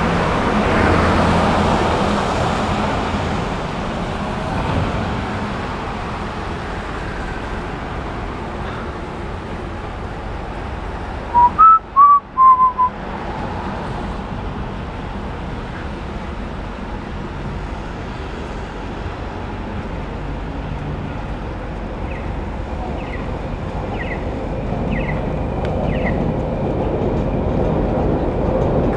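Steady hiss of traffic and tyres on a rain-wet street, heard while riding a bicycle, louder at the start as vehicles pass and again near the end. About twelve seconds in, a brief run of whistled notes cuts through.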